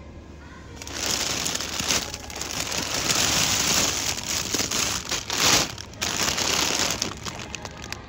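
Plastic bags of frozen McCain French fries crinkling and rustling in uneven surges as a hand rummages among them and pulls one out, from about a second in until near the end.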